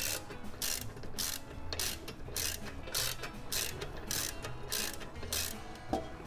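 Socket ratchet wrench clicking in an even rhythm, about nine strokes at roughly one and a half a second, as the torque converter bolts are run in through the flexplate.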